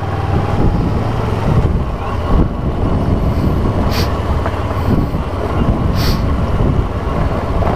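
Kawasaki Versys 650 parallel-twin engine running steadily under road and tyre noise as the motorcycle rides over a broken, rough road, with a few sharp knocks about two and a half, four and six seconds in.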